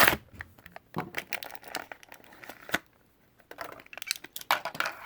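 Diecast toy car packaging crinkling and tearing as it is opened by hand: irregular crackles and short rips, with a brief pause about three seconds in.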